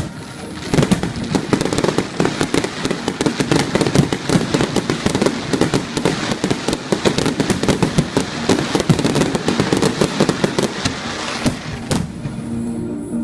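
Fireworks display: a dense, rapid barrage of bursts and crackling reports, with two louder bangs near the end.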